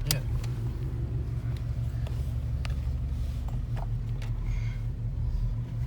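2012 Ford Mustang Boss 302's 5.0-litre V8 idling steadily at a high idle, with a few faint clicks on top.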